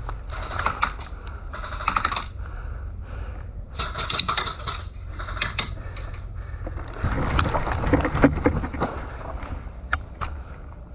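Airsoft gunfire: several short bursts of rapid sharp clicks and knocks, the loudest and densest stretch coming about seven seconds in, over a steady low rumble of movement.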